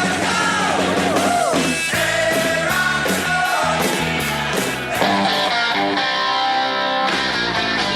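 A 1970s rock record playing, with electric guitar bending notes and a singing voice.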